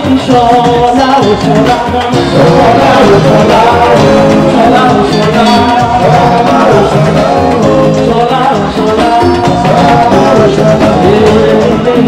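Live band music with a woman singing into a microphone over keyboard and electric guitar, loud and continuous.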